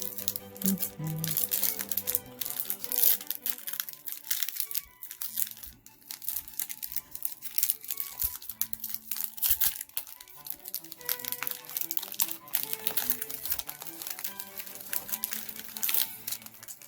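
Foil booster-pack wrapper of Pokémon trading cards crinkling and crackling as it is handled and torn open, over background music.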